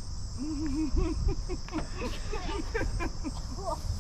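Steady high-pitched chorus of crickets, with a faint wavering pitched sound underneath.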